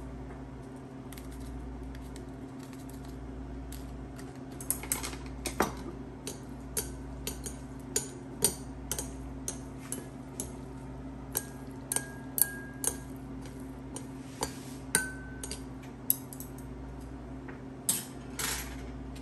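Chopsticks and a utensil clicking and clinking against ceramic noodle bowls while seasoning is stirred into instant noodles. The clinks start about four seconds in and come irregularly, a few making the bowl ring briefly. A steady low hum runs underneath.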